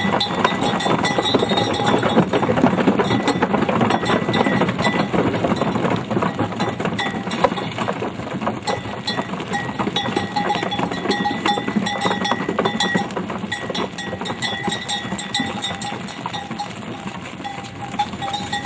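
A herd of cattle on the move: a continuous clatter of many hooves and bodies, with a cowbell on one of the animals ringing irregularly over it, plainer in the second half.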